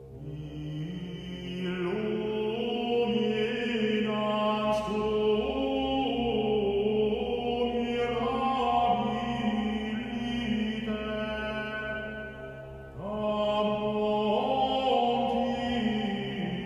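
Chanted singing of a prayer: melodic sung phrases over a steady low drone, with a brief break about 13 seconds in before the chant resumes.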